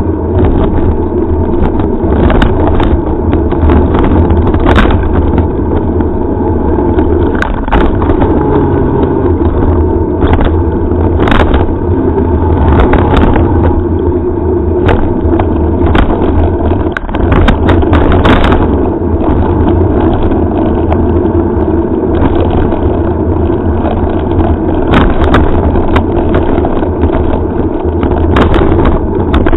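Mountain bike riding fast over a dirt and gravel track, heard through a head-mounted action camera's microphone: loud steady wind and tyre rumble with scattered knocks as the camera jolts over bumps.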